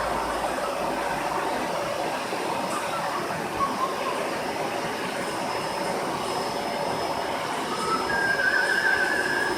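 Vacuum cleaner running steadily while being used to groom a dog, a continuous whining motor with airflow noise. About eight seconds in, a louder wavering higher tone joins it.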